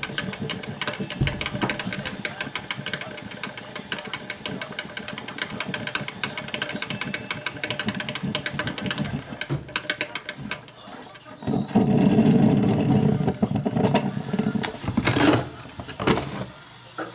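Black & Decker thermal carafe drip coffee maker brewing: rapid irregular crackling and popping as the water heats and spurts through. About two-thirds of the way in, a louder low drone takes over for a couple of seconds, followed by two short loud bursts.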